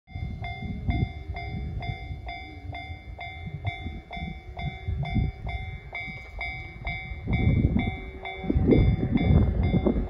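Japanese level-crossing alarm sounding the JR standard electronic bell tone, repeating at about two strikes a second: the crossing's warning that a train is approaching. A low rumbling noise under it grows louder over the last few seconds.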